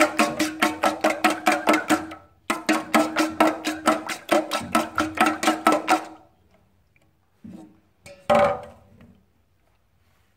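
Metal spoon beating eggs in a stainless steel bowl: quick, even clinks against the metal, about six a second, with the bowl ringing. The beating pauses briefly about two seconds in and stops about six seconds in, followed by a soft knock and a louder clank.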